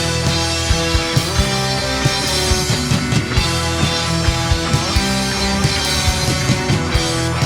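Rock band playing an instrumental passage with electric guitars, bass and a steady drum beat.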